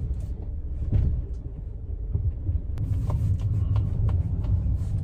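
Low, steady rumble with a few faint clicks scattered through it.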